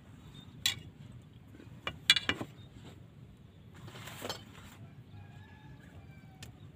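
A few sharp clicks and a ringing clink of fishing gear being handled as a fishing rod is taken in and packed up, followed by a brief rustle.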